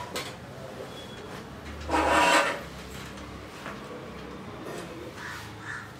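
A man eating biryani and rice by hand: fingers working the rice on the plate and chewing, with one louder rasping noise lasting about half a second, two seconds in.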